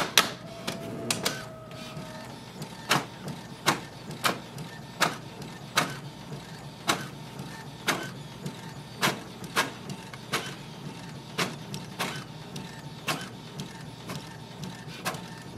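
Brother MFC-J1010DW inkjet printer printing a page: a steady mechanical run punctuated by sharp clicks about every two-thirds of a second, after a knock at the start.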